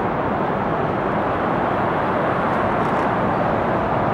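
Distant jet engine noise of a McDonnell Douglas MD-83, its twin Pratt & Whitney JT8D engines heard as a steady rush while the airliner rolls out on the runway after landing, growing slightly louder.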